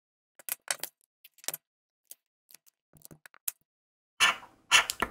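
Handling and scratching of paper scratch-off lottery tickets: sparse light clicks and short scratches, then louder, denser scratching strokes from about four seconds in.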